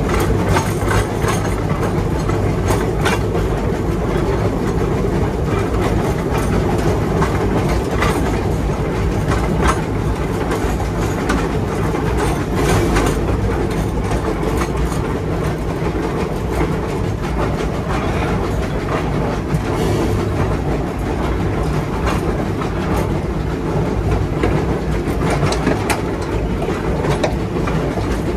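Lima-built Shay geared steam locomotive working close up while moving slowly, a steady rumble with irregular sharp clicks and clanks of the wheels over the rail joints.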